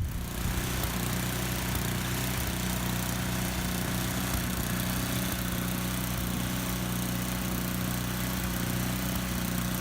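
Snowblower's small gas engine running steadily at a constant speed, with a broad hiss over the engine note.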